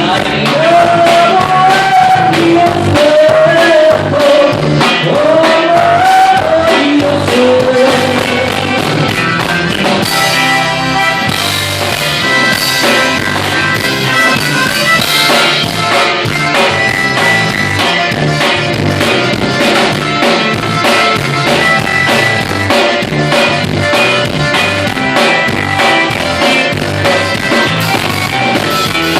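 Band music with a steady beat, a sung melody line wavering over it in the first part, then instruments carrying on.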